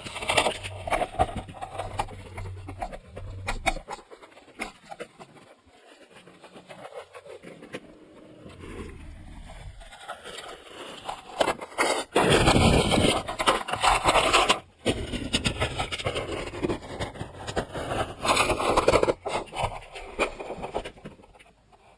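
Irregular scraping and knocking, with several louder noisy stretches of handling sounds.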